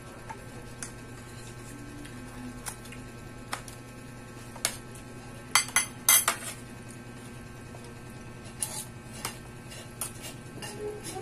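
Dishes and a spoon clinking on a dining table as food is picked from plates: scattered light clinks, with a quick run of louder clinks about five and a half to six seconds in, over a low steady hum.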